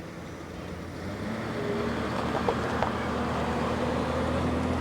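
A motor vehicle's engine running with a steady low hum, growing louder about a second in, with two short clicks near the middle.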